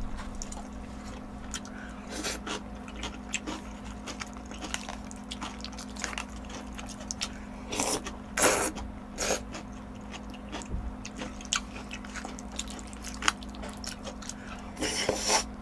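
Close-miked eating of jjajangmyeon (noodles in black bean sauce): wet chewing and mouth-smacking clicks, with louder slurps of noodles about eight seconds in and again near the end. A steady low hum runs underneath.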